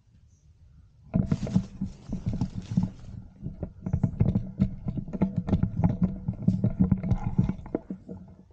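Close, irregular rustling and crackling of dry leaf litter and foliage, with handling knocks, as someone crouches and shifts position in the undergrowth. It starts about a second in and dies away near the end.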